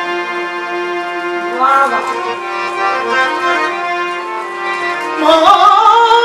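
Harmonium holding steady chords, joined by a man singing a Rajasthani folk song about a second and a half in and more loudly near the end, with hand strokes on a dholak entering near the end.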